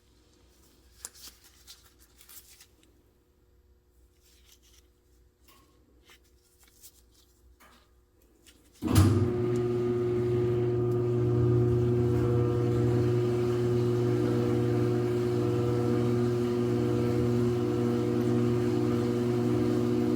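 A few faint clicks, then about nine seconds in a Whirlpool clothes dryer starts up suddenly and runs steadily with a loud motor-and-drum hum.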